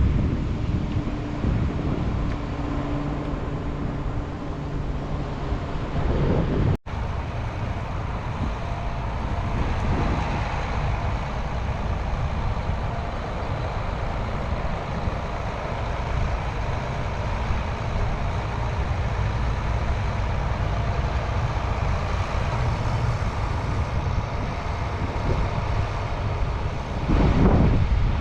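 Heavy vehicle engine running steadily under low wind rumble on the microphone, with a brief dropout about seven seconds in.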